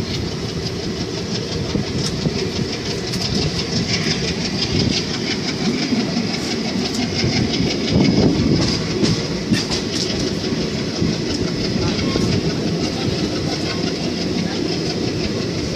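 Indian Railways passenger train running, its wheels clattering irregularly over rail joints and the points of multiple crossovers under a continuous rumble of the coaches, heard from an open coach doorway.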